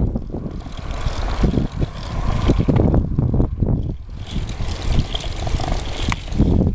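Wind buffeting the microphone of a camera on a moving bicycle, with a steady low rumble and irregular small rattles from the bike and its wire basket rolling over the asphalt.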